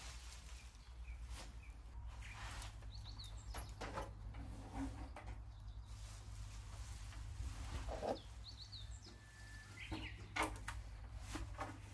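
Plastic drop sheet rustling with soft knocks as a car's bonnet cowl is handled and turned over on it; the loudest knocks come about 8 and 10 seconds in. A few quick bird chirps sound twice in the background over a steady low hum.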